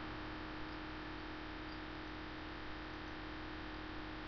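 Steady low hiss with a faint, steady electrical hum: the recording's background noise with no other sound.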